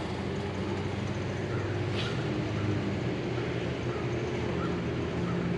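A steady low machine hum with a faint click about two seconds in.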